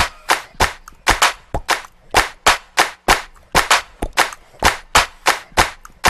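Camera shutter firing over and over, about three sharp clicks a second.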